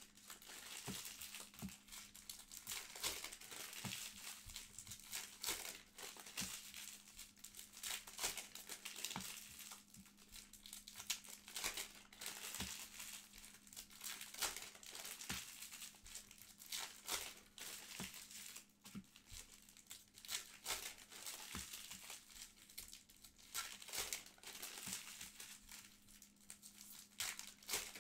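Foil trading-card pack wrappers being torn open and crinkled by hand, with a steady run of irregular crackles and rustles. A faint steady hum sits underneath.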